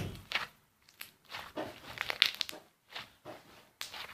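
Slime being squeezed and stretched by hand, a series of irregular short squelching sounds with brief pauses between them.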